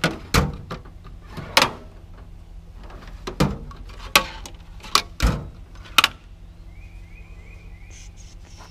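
Metal hand tools being handled: about eight sharp clanks and knocks over the first six seconds, then a few faint high chirps near the end.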